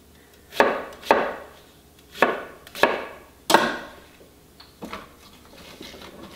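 Chef's knife chopping an onion on a wooden cutting board: five sharp chops in the first three and a half seconds, then a few lighter knocks.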